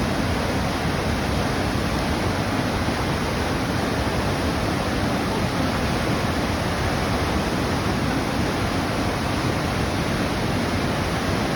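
Huka Falls on the Waikato River: a steady, unbroken rush of fast white water.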